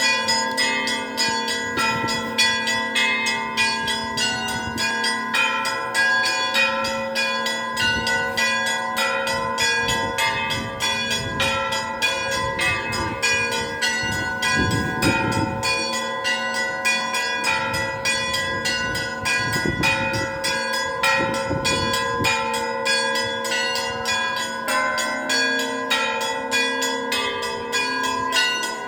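Russian Orthodox church bells ringing a continuous peal (zvon): small bells struck rapidly, several strikes a second, over the steady hum of larger bells.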